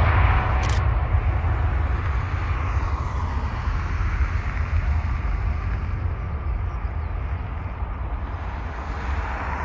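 Jet airliner engine noise fading as the aircraft moves away, over a steady low rumble. One camera shutter click a little under a second in.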